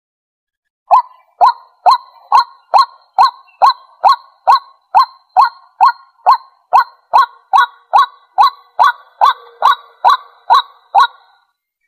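White-breasted waterhen calling: a long, even run of about two dozen short, sharp notes, roughly two a second, starting about a second in and stopping shortly before the end.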